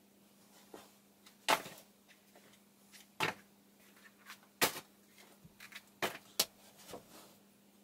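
High-heeled shoes knocking against one another as they are picked up and set down, about six short, sharp clacks a second or so apart, two of them close together about six seconds in.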